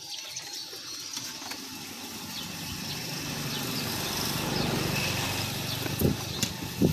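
Motor vehicle engine running, growing louder toward the middle and then easing off. Two short sounds come near the end.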